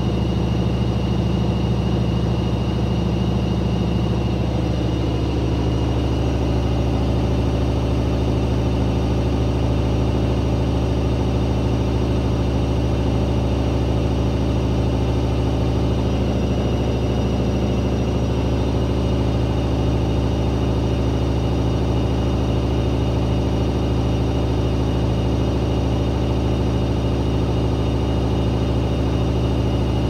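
Daewoo DWD-FT1013 front-loading washing machine spinning at 800 rpm with an unbalanced load: a loud, steady hum of motor and drum, its pitch shifting a little about five seconds in.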